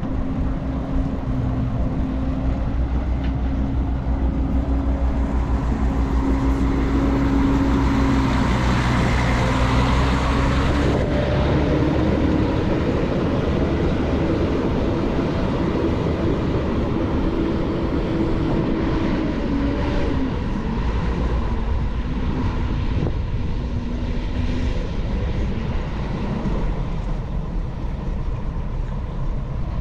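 Intercity coach's diesel engine running as the coach drives off across a dirt yard: loudest near the start of the pull-away, its note stepping up in pitch about a third of the way in as it gathers speed, then dropping and fading as it moves away.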